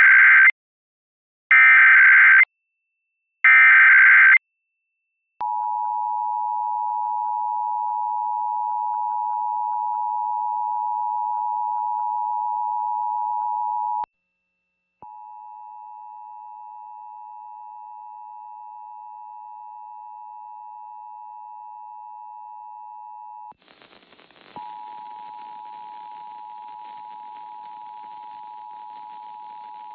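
Emergency Alert System test: three short bursts of the SAME header data warble, then the two-tone EAS attention signal (853 Hz and 960 Hz together). The steady tone cuts out for about a second partway through and comes back quieter. Near the end it breaks up in a brief crackle, then carries on with hiss under it: dropouts from poor TV reception.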